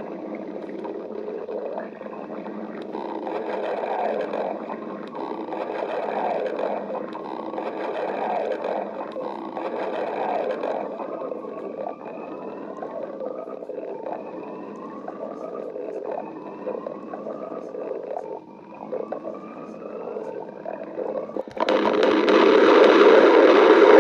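Stomach growling: continuous low gurgling, then a run of short rising squeaky gurgles, and near the end a much louder, long growl.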